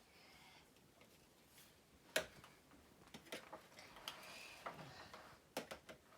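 Scattered clicks and knocks of plastic vacuum cleaner parts being handled and fitted together. The sharpest click comes about two seconds in, and a few smaller ones follow near the end.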